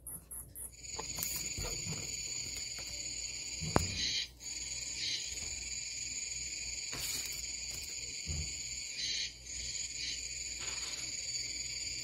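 Cicada song: a steady, high buzz that sets in about a second in and runs on, breaking off briefly just after 4 s and again near 9 s. A sharp click sounds just before the first break.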